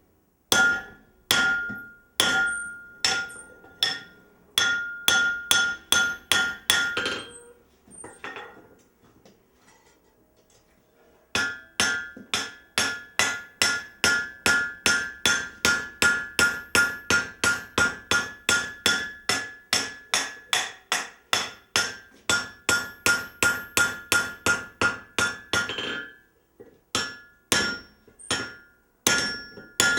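Hammer blows ringing on steel as wagon standards are forged, about two to three strikes a second, each with a clear metallic ring. The hammering stops for a few seconds about a quarter of the way in, then resumes in a long, even run.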